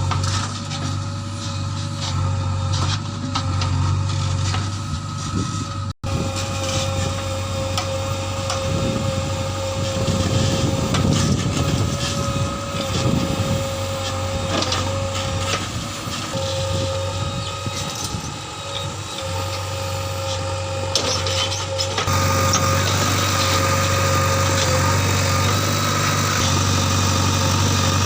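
JCB 3DX backhoe loader's diesel engine running steadily while the machine works, with a rougher, noisier stretch in the middle. The sound cuts out for an instant about six seconds in and changes abruptly later, as at edit points.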